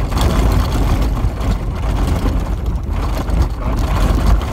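A vehicle driving along a sandy dirt track: a deep, steady rumble of engine and tyres on the ground.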